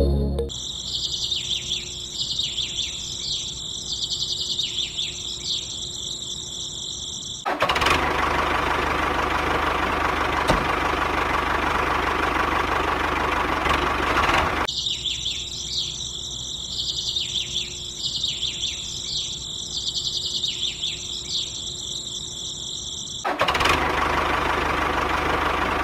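Small DC electric motor of a homemade toy tractor running and turning a miniature flour mill through a belt, a steady buzz that comes in twice, about a third of the way in and again near the end. In between are quieter stretches of birds chirping over a thin high whine.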